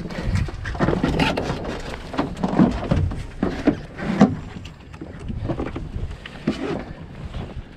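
Knocks and rattles of gear and rigging being handled aboard a small Wanderer sailing dinghy, with a few short creaks, over water and wind buffeting the microphone.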